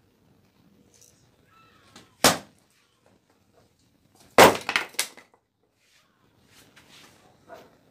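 Axe blade striking a log set up for splitting firewood, two blows about two seconds apart. The second blow is the louder and is followed by a short run of smaller knocks.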